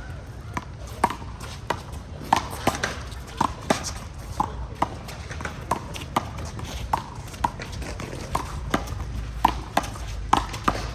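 A one-wall handball rally: a small rubber handball is slapped by hand and smacks off the wall and the court. It makes an irregular run of sharp slaps, about two a second, many with a short ringing ping.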